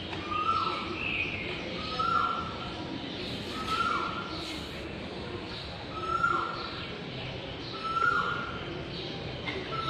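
A bird calling over and over: a short call that holds, then drops in pitch, repeated about every two seconds, with fainter higher chirps in between.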